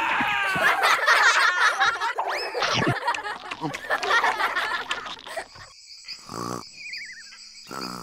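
Cartoon creature sound effects: a dense jumble of gliding, chirping cries for the first five seconds or so, then quieter, with a short wavering falling tone near the end.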